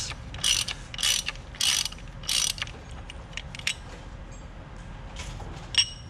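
Ratchet wrench with a 32 mm socket ratcheting in about five short strokes, roughly two a second, as it unscrews a plastic oil filter housing cap. Then a few lighter scattered clicks and one sharp click near the end.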